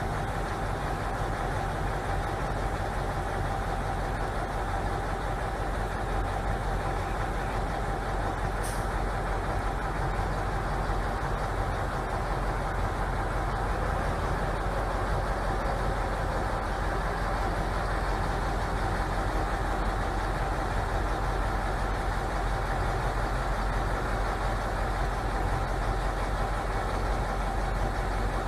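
Heavy truck engine running steadily, with a thin steady whine above it and one faint click about nine seconds in.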